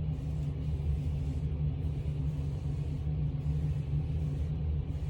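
A steady low mechanical hum and rumble that does not change.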